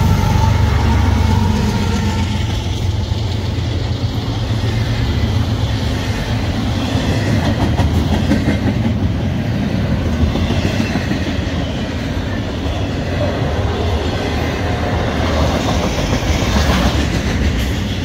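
Norfolk Southern double-stack intermodal freight train passing at speed close by: the trailing GE Evolution-series locomotive's heavy low rumble in the first couple of seconds, then the steady rumble and clickety-clack of the double-stack container well cars' wheels on the rails.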